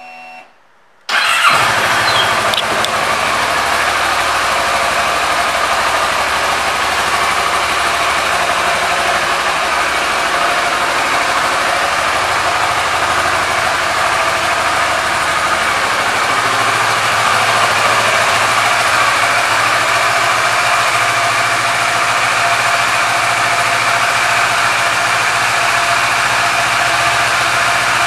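Kawasaki Versys motorcycle's parallel-twin engine starting about a second in, catching at once, then idling steadily.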